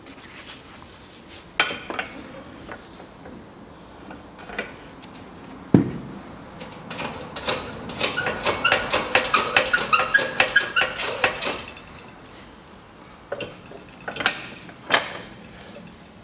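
Metal clanks and clicks from handling a strut spring compressor and setting a front suspension strut with its coil spring into it. A heavy thump comes about six seconds in, then a quick run of ringing metallic clicks, about three or four a second, for some four seconds, and a few more scattered knocks near the end.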